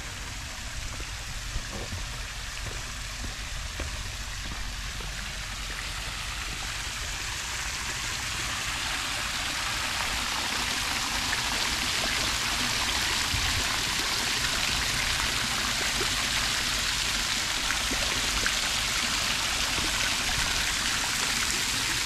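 Fountain jets spraying and splashing into a stone basin: a steady rushing patter of falling water that grows louder over the first half, then holds steady.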